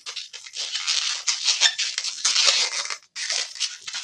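Latex 260 modelling balloon rubbing against itself and the hands as it is twisted and worked, a dense run of scratchy rubbing with a short break about three seconds in.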